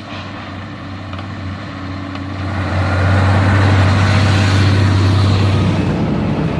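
Heavy logging truck's engine running under load, growing louder over the first three seconds and then holding steady.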